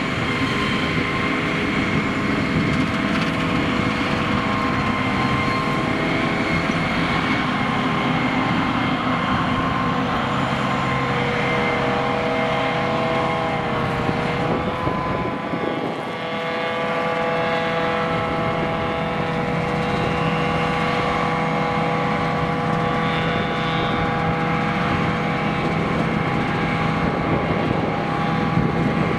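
Heavy diesel engine of farm machinery running steadily and loudly, its pitch dipping slightly about halfway through and then holding level.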